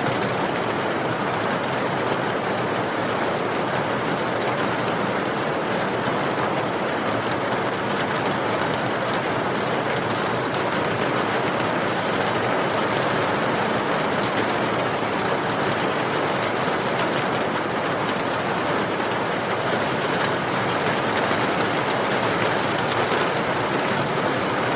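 Steady rain pouring down, mixed with the crackle of a burning wood fire.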